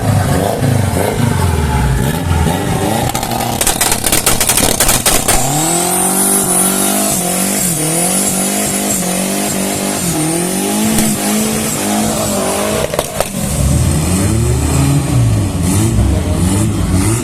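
Drag-racing car engine revving hard: uneven blips with a rapid crackle of pops about four seconds in, then held at high revs for several seconds with small dips and a thin high whistle, before dropping back to uneven lower revving.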